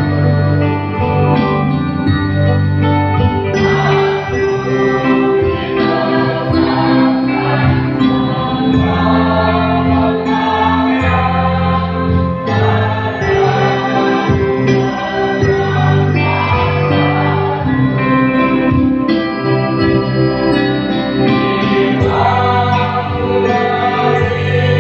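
Mixed choir of men and women singing together, accompanied by an electric bass guitar playing sustained low notes.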